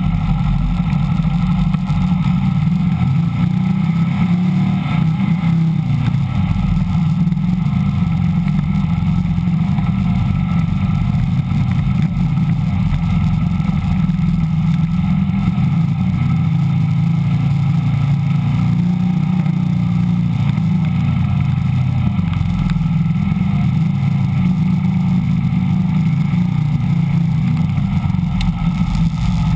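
VW dune buggy's air-cooled 1600 dual-port flat-four engine running steadily under load while driving through mud, with only slight swells in engine speed.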